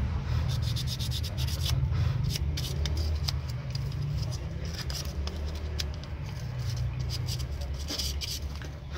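Fine sandpaper rubbed in short, irregular scratchy strokes over the contacts of a car fog-lamp switch, sanding off the dirt that kept the fog lamps from lighting. A steady low hum runs underneath.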